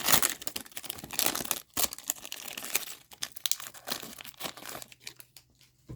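Crinkling and tearing of a hockey card pack's wrapper as it is ripped open and handled, a dense crackle of many small snaps that thins out near the end, with a single sharp tap at the very end.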